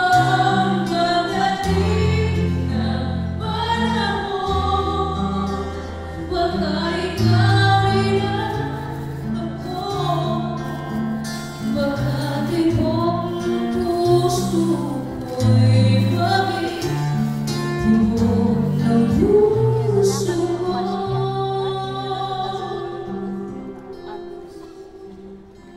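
A live vocalist sings over amplified acoustic guitar through a PA system, with sustained low bass notes beneath the voice. The music fades down over the last few seconds as the song winds down.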